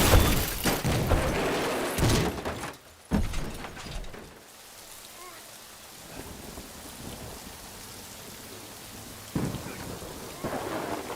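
A loud crash and several heavy impacts in the first few seconds, then a steady downpour of rain with a low rumble under it.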